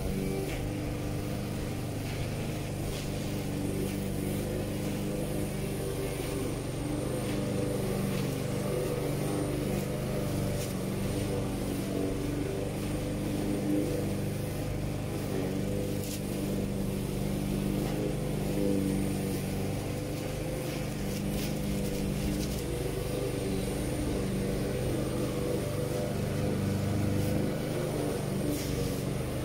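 Petrol walk-behind rotary lawn mower engine running steadily while cutting grass.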